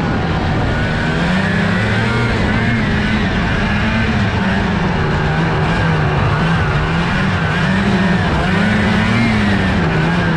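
Lynx snowmobile's fan-cooled two-stroke engine running under way, its pitch rising and falling again and again as the throttle is worked through the turns of a lap.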